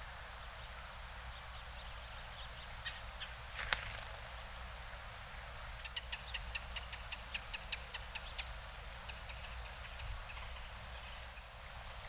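Small songbirds giving short, sharp chip calls. There are a few scattered chips, a louder sharp note about four seconds in, then a quick run of chips, about four a second, from about six seconds in until near the end, over a faint low rumble of outdoor ambience.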